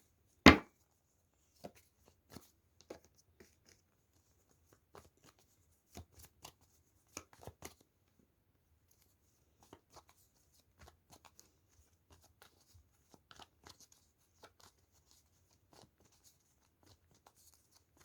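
Tarot cards being handled: scattered soft clicks and snaps of card stock, with one sharp loud snap about half a second in.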